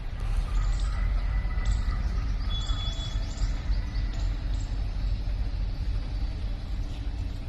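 Low, steady rumble of twin WDM-3A diesel locomotives' ALCO V16 engines, with a faint steady drone joining about three seconds in.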